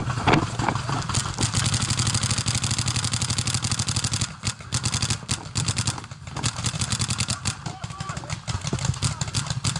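Paintball markers firing rapid, near-continuous volleys of shots, starting about a second in and breaking off briefly twice, about four and six seconds in.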